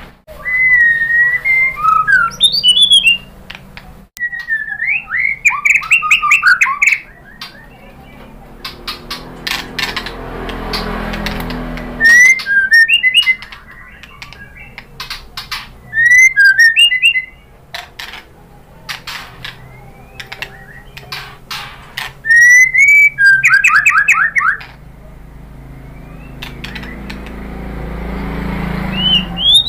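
White-rumped shama singing: bursts of loud, varied whistled phrases and fast trills, with pauses filled by sharp clicks. A low rumble swells in the background twice, around the middle and near the end.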